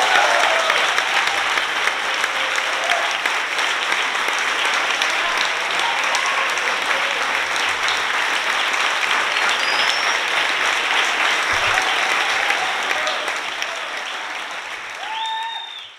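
Audience applauding steadily at the end of a tango performance, the clapping dying down near the end.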